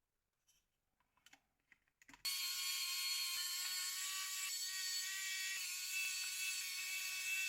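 A few faint clicks, then about two seconds in a small high-speed motor starts and runs steadily: a high whine of several held tones over hiss.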